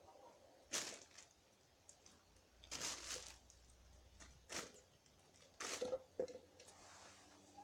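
Chickens pecking at and tearing soft, overripe spaghetti squash: a handful of short, wet pecks and squishes at irregular intervals.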